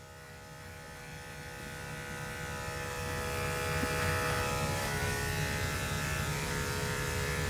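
Electric dog grooming clippers with a #10 blade running with a steady buzz as they shave matted coat off a puppy's leg; the buzz grows louder over the first few seconds, then holds.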